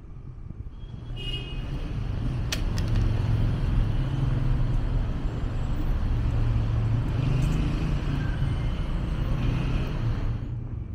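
Street traffic: motor vehicles running past close by, a low rumble that swells about a second in, holds steady and fades near the end, with a couple of light clicks along the way.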